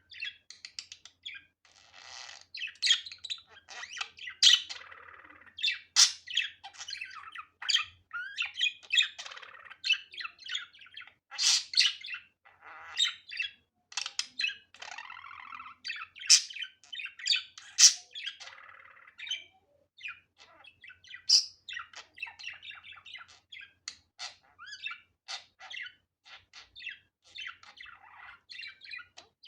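Budgerigar warbling and chattering: a continuous run of rapid chirps, clicks and short squawks, with sharper, louder calls every second or two.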